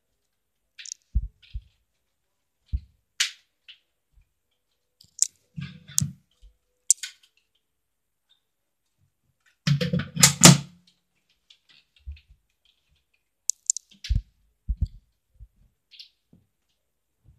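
Scattered clicks and soft thumps as toy Nerf blasters are handled and people move about, with a louder clatter lasting about a second near the middle.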